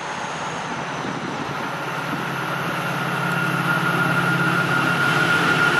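MARC Siemens SC-44 Charger diesel locomotive approaching at speed, its engine drone and a steady high whine growing louder as it nears.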